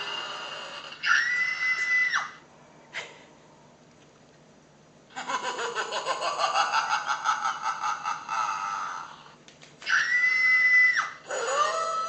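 Halloween-style screams: a high scream of about a second, then a longer pulsing, wavering cry, then a second high scream about ten seconds in, with a rising wail beginning near the end.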